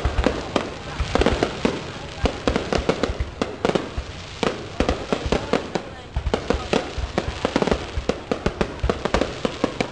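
Fireworks display: aerial shells bursting in a rapid, uneven string of bangs and crackles, several a second.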